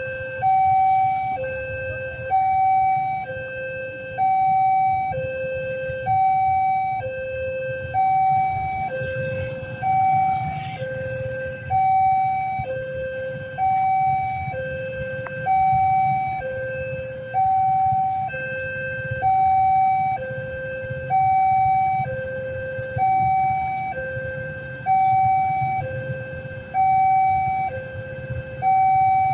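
Railway level-crossing warning siren sounding a two-tone signal, a higher tone alternating with a lower one about once a second, the higher tone the louder: it warns that a train is approaching and the crossing is closed. Underneath is the low rumble of idling motorcycles queued at the crossing.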